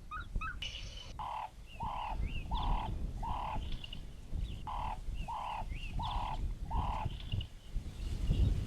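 Savanna birds calling: one bird gives two runs of four evenly spaced, caw-like calls, while smaller birds chirp higher and faster around it.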